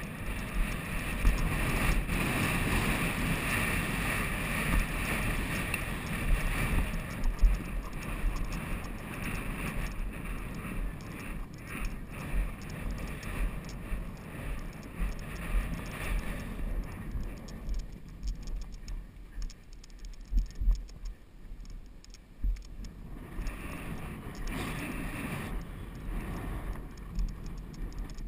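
Wind buffeting the microphone of an action camera carried on horseback, a rushing noise with irregular thuds and knocks from the ride; it eases for a while after the middle.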